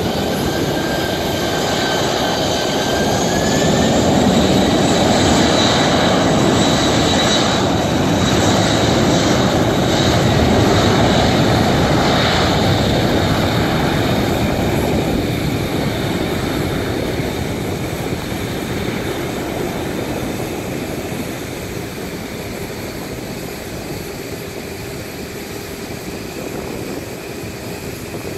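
Boeing 747-400 freighter's four turbofan engines running as the jet moves on the ground, with a fan whine that rises in pitch about three seconds in. It is loudest for the next ten seconds, then fades steadily as the aircraft moves away.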